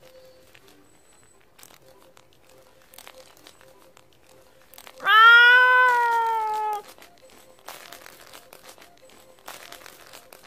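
A domestic cat gives one long meow about five seconds in: it rises sharply at the start, then slides slowly down for nearly two seconds. Faint rustling comes before and after it.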